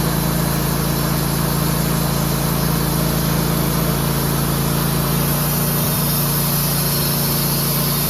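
Wood-Mizer LT15 portable band sawmill running steadily under load, its engine holding an even pitch as the band blade saws a slab off a red oak log.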